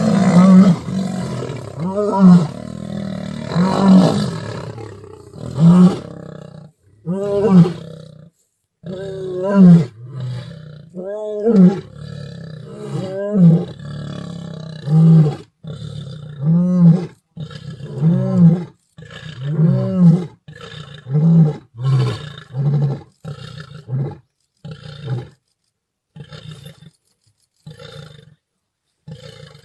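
Male lion roaring: a bout of roars that settles into a run of short grunts about once a second, growing fainter near the end.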